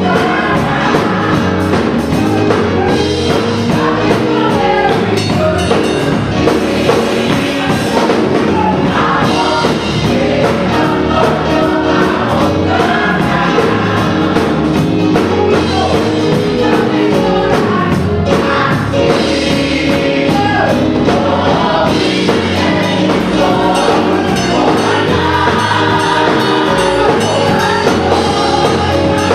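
Gospel choir singing with a live church band, the music loud and continuous.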